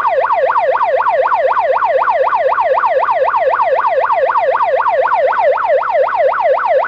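Electronic alarm tone from an Amseco VSD-208 voice siren driver, played through a Simplex LifeAlarm speaker turned down to a quarter watt. The pitch sweeps rapidly and evenly up and down, about five times a second, in a fast warbling siren.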